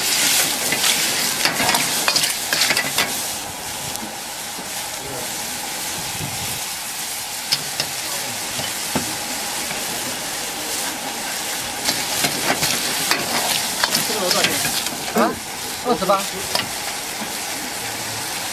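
Clams cooking in broth and soy sauce in a wok, sizzling steadily, loudest in the first three seconds. A metal ladle stirs and scrapes against the wok, with clinks and squeaks now and then, mostly in the second half.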